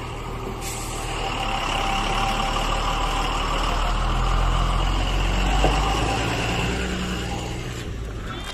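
Tata tipper truck's diesel engine running as the truck drives slowly past, growing louder as it comes close and fading as it pulls away.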